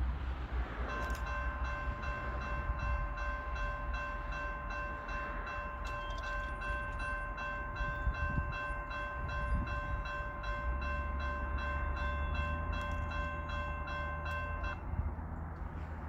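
Railroad grade-crossing warning bell ringing steadily at about three strikes a second, warning of an approaching train. It stops about a second and a half before the end, over a steady low rumble.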